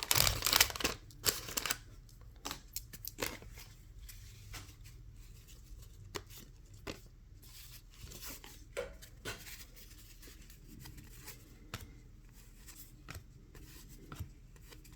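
Cardboard baseball cards from a wax pack being handled and flipped through by hand: irregular soft clicks and slides as each card is moved, after a louder rustle in the first second or so.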